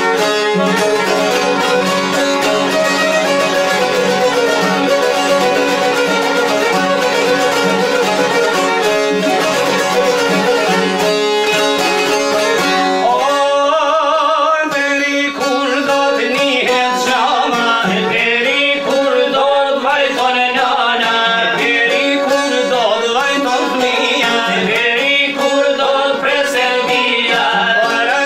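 Albanian folk ensemble of violin and çiftelis (two-stringed long-necked lutes) playing a lively instrumental introduction; about halfway through, a male voice begins singing a wavering, ornamented melody over the strings.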